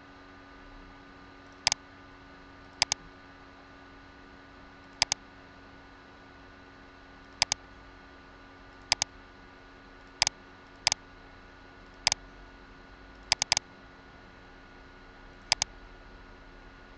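Computer mouse button clicking about ten times at irregular intervals, each click a quick press-and-release pair, over a faint steady electrical hum.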